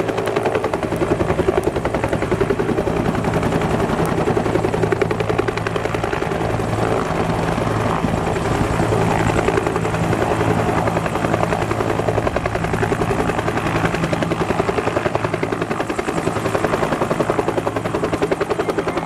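UH-1J helicopter hovering low overhead. Its two-bladed main rotor and turbine engine give a steady, rapid chop that holds unchanged.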